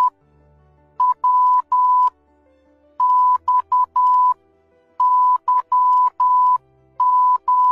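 Morse code sent as a steady high beeping tone, in groups of short and long beeps (dots and dashes) about every two seconds, over quiet background music. The groups read W, X, Y and Z, the end of the alphabet being spelled out in turn.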